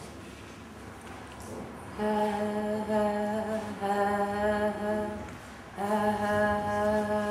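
A voice humming long held notes at a nearly steady pitch, starting about two seconds in, in two long phrases with a short pause between them about five seconds in.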